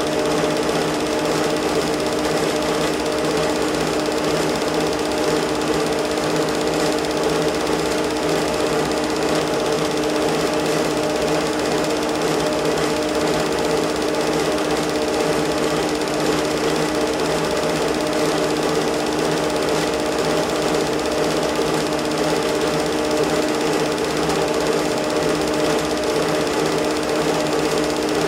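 Home-movie film projector running: a steady, rapid mechanical clatter from the film advance over a constant motor hum.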